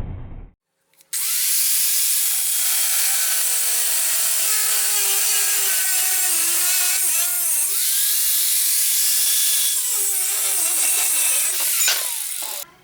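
Electric grinder working steel from a car coil spring: a steady hiss from the abrasive on the metal over a motor whine whose pitch sags under load about seven seconds in. It starts about a second in and cuts off just before the end.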